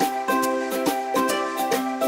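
Background music: a bright tune of quick, evenly spaced notes over a steady beat.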